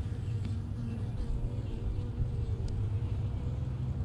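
Honeybees buzzing around an open hive: a steady hum with a slightly wavering pitch, over a low rumble.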